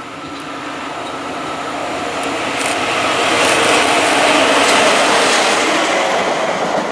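SNCF BB 27000 electric locomotive (BB 27063) running light, without wagons, passing close by: the rolling noise of its wheels on the rails grows steadily louder as it approaches, peaks about four to five seconds in as it passes, then eases a little.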